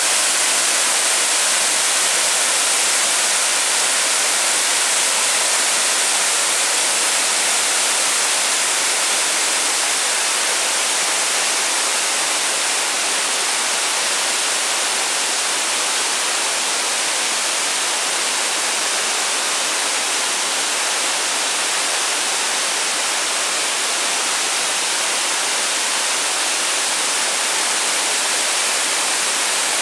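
A waterfall cascading down a rock face into a pool: a steady, unbroken rush of water. It is mostly a high hiss with little low rumble.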